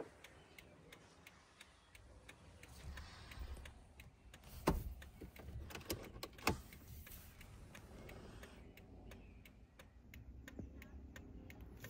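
Steady, even ticking of about two ticks a second, like a pickup's hazard or turn-signal flasher relay, with two louder knocks around the middle.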